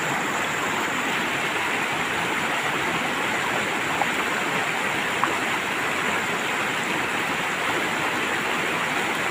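Mountain stream rushing and splashing over rocks in a steady rush of water, with two faint brief ticks near the middle.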